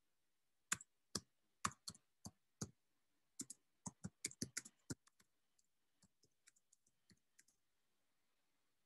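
Typing on a computer keyboard: a quick, irregular run of key clicks, loud for the first few seconds, then fainter and sparser, stopping about seven and a half seconds in.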